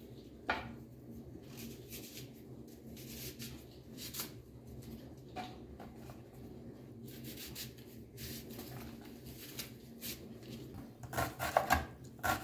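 Kitchen knife working on a bamboo cutting board: scattered light taps and scrapes as a leek is slit and cut, then a quick run of chopping knocks near the end as an onion is chopped, over a faint steady hum.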